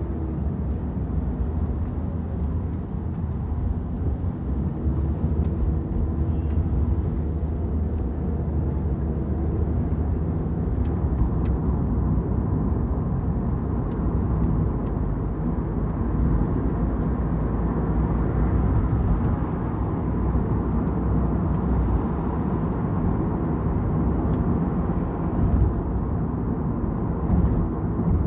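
Steady low rumble of a car being driven: engine and tyre noise on the road.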